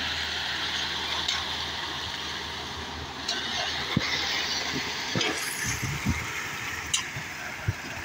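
Self-loading concrete mixer's diesel engine running steadily while wet concrete pours out down its discharge chute, with a few short sharp knocks along the way.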